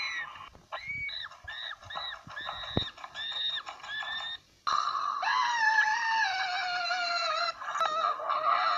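A high-pitched cartoon voice screaming. It starts as a quick run of short squeaks, and about four and a half seconds in turns into one long scream that slides slowly down in pitch.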